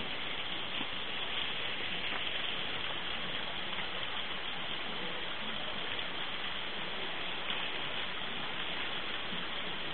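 Small waterfall: a steady, even rush of splashing water.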